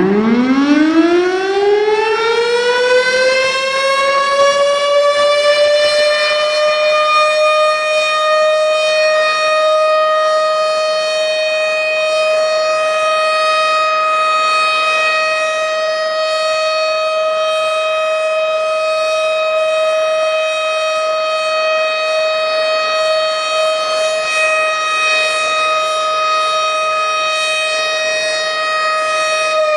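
Air-raid warning siren winding up to a steady held tone over the first few seconds, then sounding one long unbroken wail with rich overtones. It begins to wind down at the very end.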